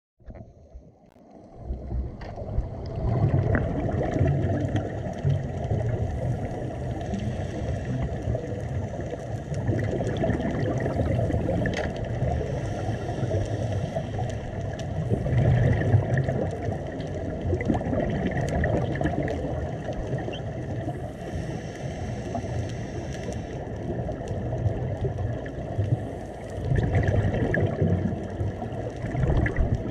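Underwater sound on a scuba dive: a steady, muffled rush of water with gurgling bubbles that swell every few seconds.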